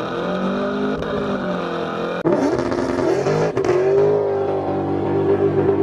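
Supercharged 4.6-litre V8 of a 2003–04 Mustang SVT Cobra running under way. Its pitch rises and falls and jumps abruptly twice, climbing after the first jump and holding steady near the end.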